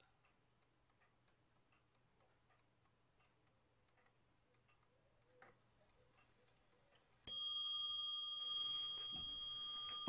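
Antique Parrot Frères mantel clock movement ticking faintly, then a click, and about seven seconds in a single loud strike of its hammer on the bell, which rings on steadily with several clear tones.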